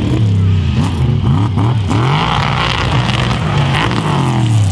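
Racing monster truck engines revving hard, the pitch rising and falling again and again as the throttle is worked on and off.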